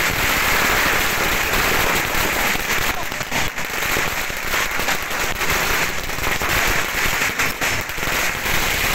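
A long string of firecrackers going off in a rapid, unbroken crackle of bangs.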